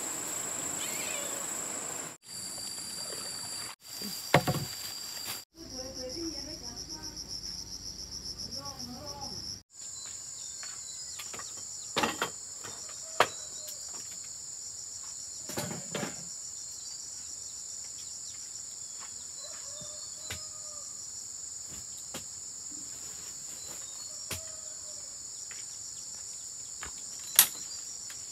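Steady, high-pitched trilling of an insect chorus, with several sharp knocks, the loudest near the end.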